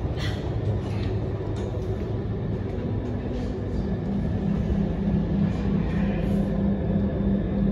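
MRT Blue Line metro train running, heard from inside the passenger car: a steady rumble of the wheels and running gear with a low hum that grows louder about halfway through.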